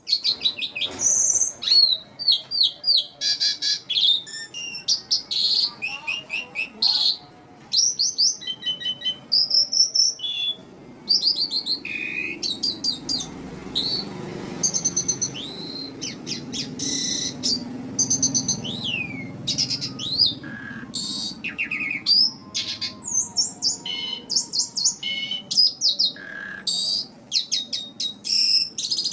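Asian pied starling (jalak suren) singing in full, continuous song (gacor): a long, varied run of high gliding whistles, rapid trills and chirps, broken by short pauses.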